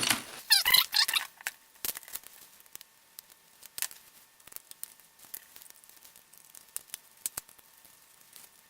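Scattered small clicks and light knocks as an old plastic portable cassette player is handled and taken apart by hand, louder in the first second and faint after that.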